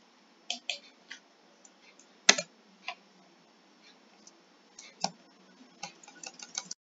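Irregular clicks of computer keys and mouse buttons, spaced out at first, with the loudest single click about two seconds in and a quick run of clicks near the end.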